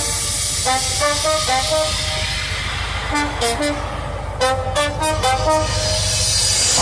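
Music playing through a car-audio system with Massive Audio subwoofers: a tune of short stepping notes over a steady low bass, with a few sharp hits about halfway through.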